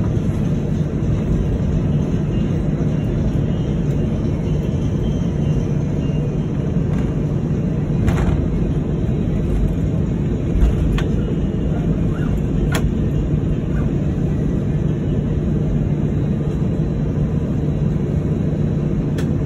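Steady cabin noise of an Airbus A319 taxiing in, engines at idle, with a low hum throughout. A few brief clicks sound partway through.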